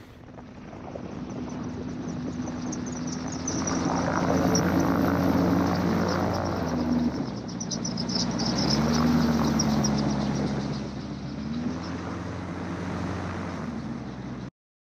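A gyroplane's engine and propeller running as it moves quickly along a grass runway, growing louder over the first few seconds, with the engine pitch swelling up and back down about nine seconds in. The sound cuts off suddenly just before the end.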